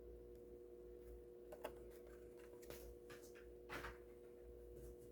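Near silence over a faint steady hum, with a few faint clicks and rustles of Hot Wheels blister-card packages being handled, the clearest about one and a half seconds in and again near four seconds.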